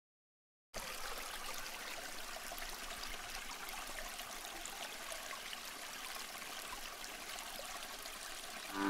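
Running water: a steady trickle and splash, starting under a second in after dead silence.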